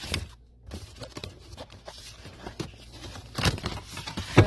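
Knocks and rustling of food packages and containers being handled and moved about on pantry shelves, with two louder knocks near the end.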